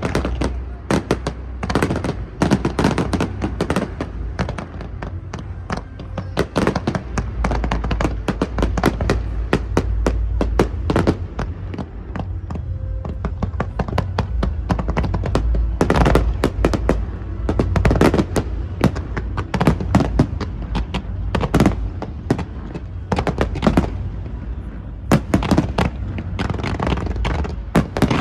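Fireworks display: a dense, irregular run of bangs and crackles over a steady low rumble.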